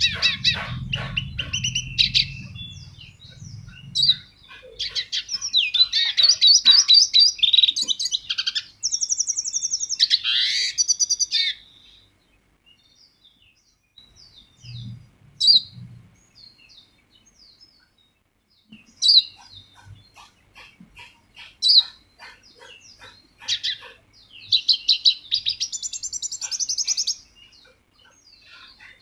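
A songbird singing in phrases of rapid trills and chirps. It sings loudly for several seconds, goes quiet apart from a few single chirps, then sings again near the end.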